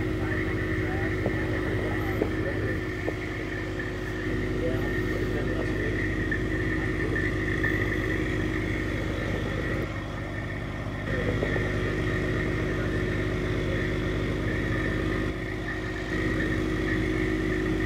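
Crane truck's engine running steadily to power the boom while a concrete septic tank is lowered into the hole, its level stepping up and down several times as the load changes.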